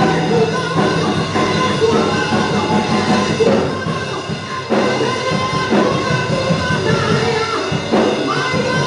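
Live church worship music: a band with drum kit playing while a voice sings over it.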